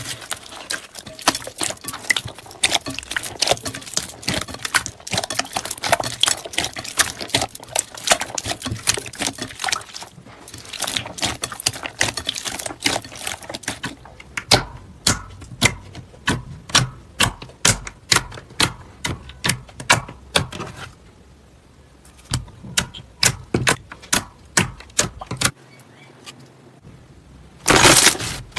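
Slime being squeezed and poked by hand, giving dense crackling clicks and pops that later thin out to separate pops, a few a second.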